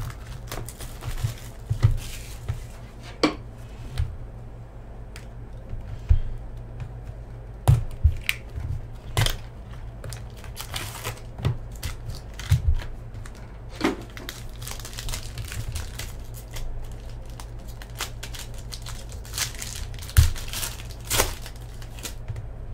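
Foil wrapper of an SP Game Used hockey card pack crinkling and being torn open, with cardboard box handling: irregular sharp crinkles and rips.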